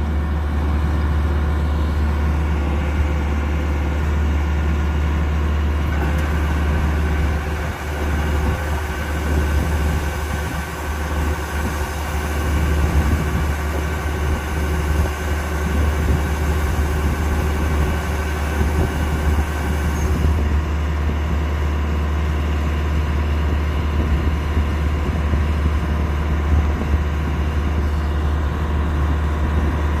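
Kubota DC-105X combine harvester running steadily, its engine and machinery giving a constant low drone, with a higher steady whine added from about 6 to 20 seconds in.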